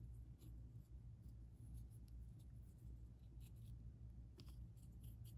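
Near silence: faint scratchy ticks of a paintbrush working a thin wash over a plastic figure, over a low steady hum.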